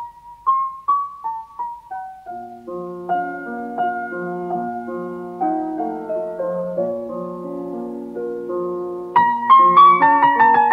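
Solo piano playing: a single-note melody opens, lower accompanying notes join after about two and a half seconds, and the playing grows louder and higher about nine seconds in.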